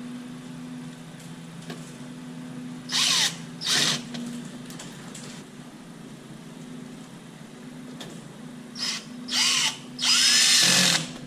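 Power drill-driver running in short bursts, driving the screws that hold an oven door hinge in place. There are two brief runs a few seconds in, then three more near the end, the last about a second long, with the motor's pitch rising and falling.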